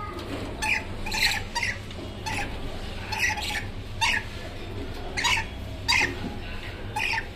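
Pet parrots (dusky lories and a peach-fronted conure) giving short, scattered chirps and squawks, roughly one or two a second, over a faint steady low hum.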